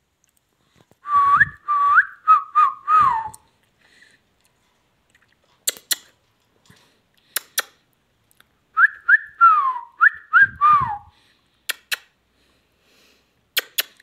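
Indian ringneck parakeet whistling a short tune twice, each phrase a run of rising and falling whistled notes lasting about two seconds, with a few sharp clicks between the phrases.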